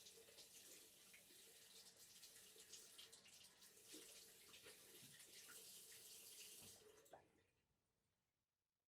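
Faint running water with small drips and plops, fading away about seven seconds in.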